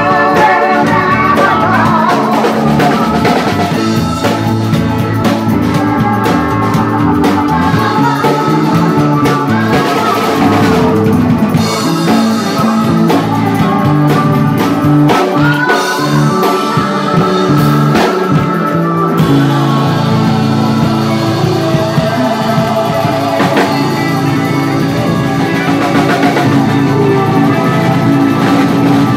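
A live blues-rock band playing: drum kit, electric bass, keyboard and harmonica played into a handheld mic.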